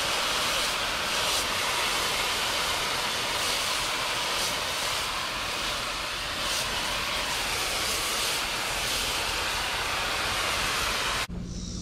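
A jet of water from a hose spray wand hitting foam-covered rubber RC truck tires and the concrete beneath them, a steady loud hiss and splatter. It cuts off suddenly near the end.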